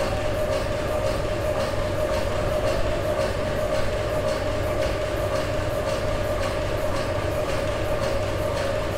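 1904 Sulzer tandem-compound steam engine and its flywheel generator running at a steady speed, with the belt-driven oil pump that returns oil from the drip tray to the oiler cap turning. It makes a steady mechanical hum with a constant whine above it and a regular light ticking.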